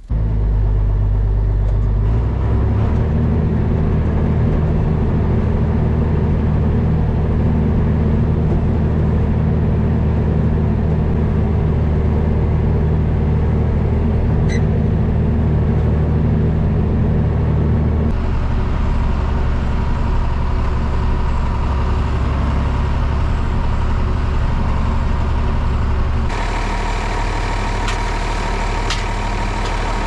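John Deere loader tractor's diesel engine running steadily, heard from inside the cab and then from outside. Its sound shifts abruptly past the middle and again near the end.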